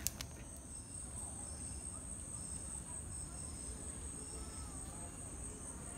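Tropical forest insect chorus: several insects, likely cicadas or crickets, keep up high-pitched droning at different pitches, one of them repeating a short note over and over at a steady pace. A few faint whistling calls come in around the middle.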